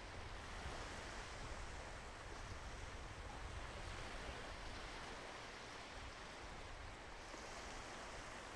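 Sea waves washing on a sandy beach: a steady, even rush of surf.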